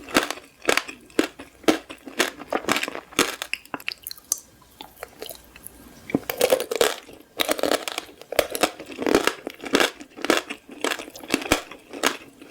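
Crunchy candy being chewed, a steady run of loud crunches at about two a second, thinning out briefly around four to six seconds in.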